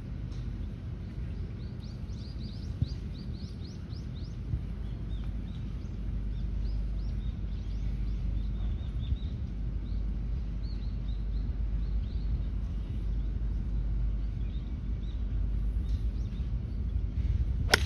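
Birds chirping in quick runs of short falling notes over a steady outdoor rumble, then right at the end a single sharp crack as a golf club strikes the ball off the tee.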